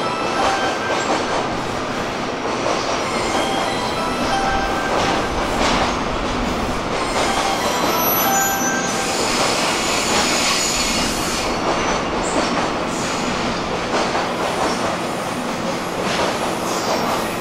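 JR East E001 series TRAIN SUITE Shiki-shima pulling slowly into a station platform, with a steady rail running noise and repeated brief high-pitched squeals from its wheels as it comes to a halt.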